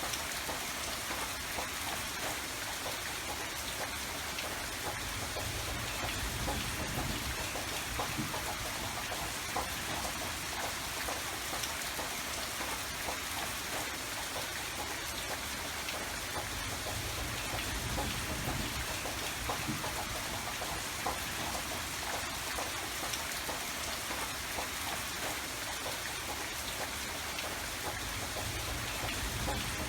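Steady rain falling, an even hiss with many fine drop patters, over a faint low rumble.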